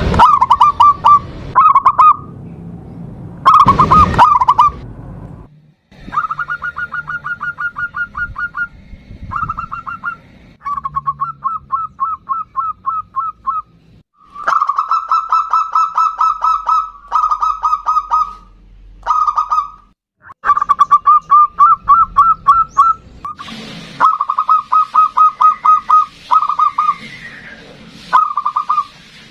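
Zebra dove (local perkutut) cooing in rapid trains of short, quick notes, repeated series after series with brief pauses between them. A knock sounds at the start and another about four seconds in.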